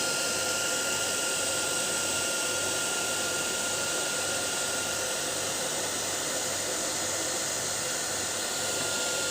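A small electric blower motor running steadily, with a rushing air noise and a constant high whine.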